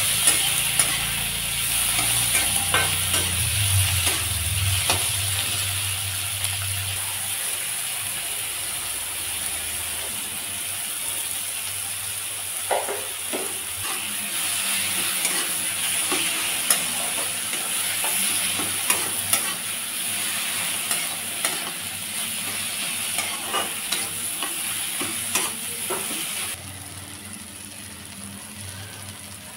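Onions, garlic and tomatoes sizzling in oil in a kadai, with a spatula scraping and knocking against the pan as they are stirred. Near the end the sizzle drops abruptly to a quieter hiss.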